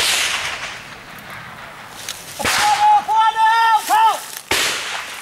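Gunfire in a firefight: sharp shots with echoing tails, one at the start, another about two and a half seconds in and a third about four and a half seconds in. Between them, a man's long high-pitched shout.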